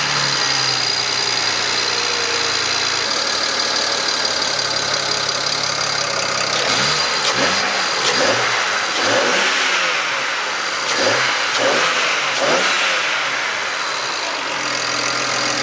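BMW 335i's twin-turbo inline-six, fitted with open cone-filter air intakes, idling steadily. About halfway through it is revved in a string of quick blips, each rising and falling in pitch, then it settles back to idle near the end.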